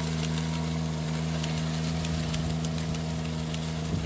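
Engine of a ride-on rice transplanter running at a steady speed, an even, unchanging hum.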